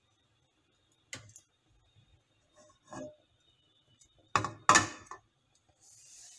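A few knocks and clunks of kitchen handling, two loud ones close together about four and a half seconds in, followed by a faint high hiss near the end.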